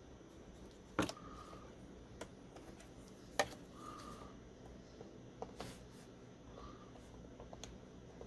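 A few small, sharp plastic clicks and taps as a laptop's keyboard ribbon-cable connector and its latch are worked by hand, the two sharpest about a second in and about three and a half seconds in, with lighter ticks later.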